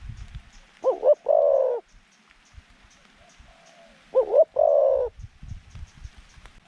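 Decoy dove cooing twice, about three seconds apart. Each call is a quick rolling double note followed by one longer, slightly falling coo.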